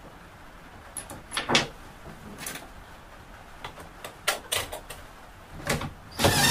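Scattered light knocks and clicks of wooden and metal parts being handled on a workbench. Near the end comes a short, loud burst from a cordless drill driving a bolt or screw down into a turntable.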